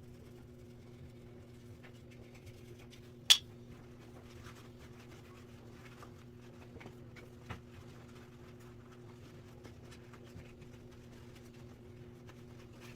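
Faint rubbing and handling sounds of box fan parts being wiped clean, with small scattered ticks and one sharp click about three seconds in, over a steady low hum.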